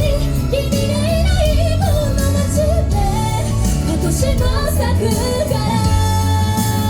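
Live J-pop performance by a female idol group: women's voices sing a wavering melody over a steady beat and bass, ending with a long held note near the end.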